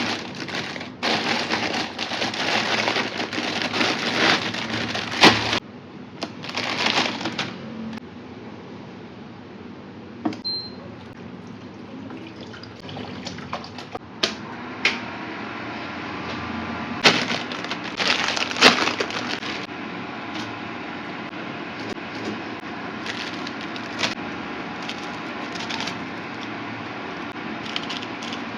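Water running in spells, stopping sharply about five and a half seconds in, then a steadier low background broken by a few sharp knocks and clatters of kitchen handling.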